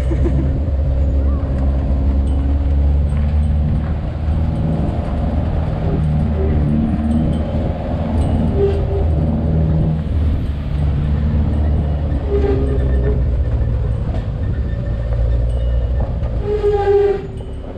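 Pickup truck driving down a rough dirt road, heard from its open cargo bed: a steady low engine and road rumble with the rattle of the bed. The noise eases a little near the end.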